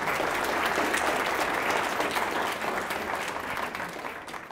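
Audience applauding at the end of a lecture, a steady patter of many hands clapping that fades away near the end.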